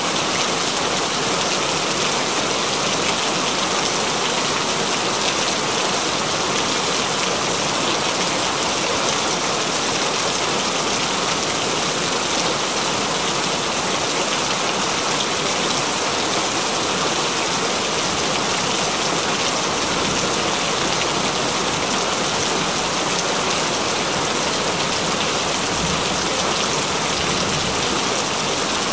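Continuous rain falling: a dense, even hiss of raindrops that holds at one level.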